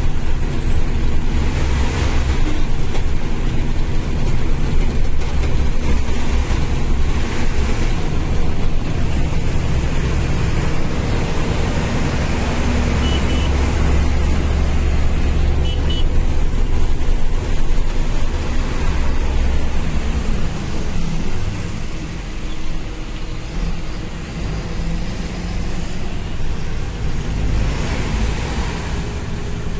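Truck engine running steadily on the move, with tyre and wind noise on a wet road, heard from inside the cab.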